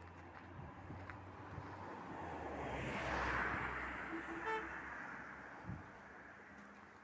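A road vehicle passes by, swelling to its loudest about three seconds in and then fading away, with a brief toot of its horn about four and a half seconds in.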